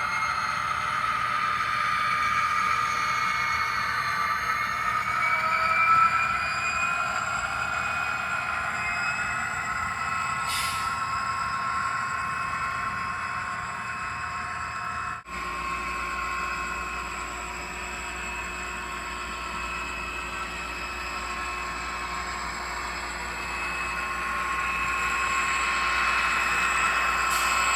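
Scale Trains GP30 HO-scale model diesel locomotive running on a model railroad layout: a steady whine that drifts up and down in pitch. Partway through, the sound changes abruptly.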